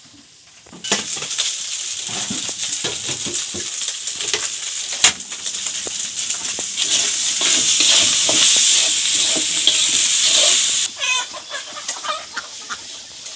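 Loud sizzling and crackling of food frying on a gas stove. It grows louder after the middle and cuts off suddenly, followed by a few chicken clucks.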